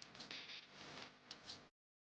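Faint sizzling and crackling of chicken skin and fat frying in oil, cutting off suddenly near the end.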